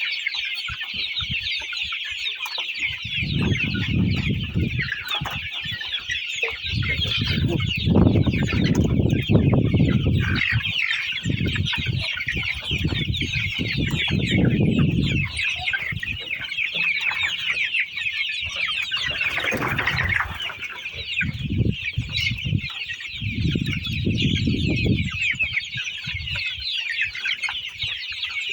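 A flock of chickens clucking continuously, many short calls overlapping, with one louder call about two-thirds of the way through. Low rumbling comes and goes underneath every few seconds.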